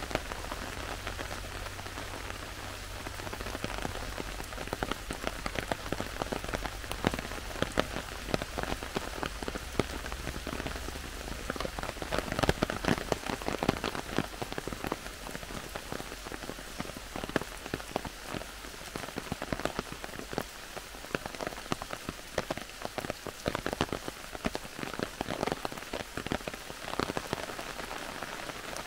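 Heavy rain falling in a forest, with countless close drops striking leaves and the ground in dense, irregular ticks over a steady hiss.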